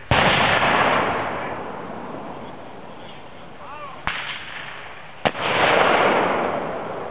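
Two loud bangs, just after the start and about five seconds in, each followed by roughly two seconds of fading rumble, with a lighter crack between them: the kind of blast made by airsoft pyrotechnic grenades.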